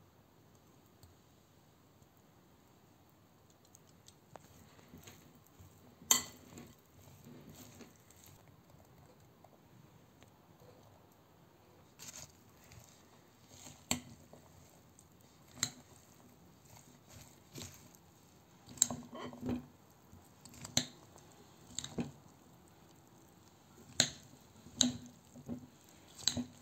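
A spoon stirring a chopped vegetable salad in a glass bowl, starting about six seconds in: soft wet squishing with sharp clinks of the spoon against the glass every second or two.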